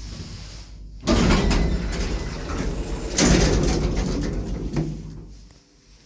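Doors of a 1980s Končar traction lift banging and rattling: a sudden loud bang about a second in, then a second loud bang about three seconds in, each trailing off in a rattle. The bangs come from the car doors being flung open by the door operator, which is a bit violent when opening, and from the manual landing door slamming.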